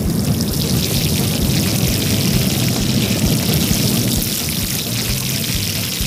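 Steady hiss of water spraying from a small hose nozzle, with background music underneath.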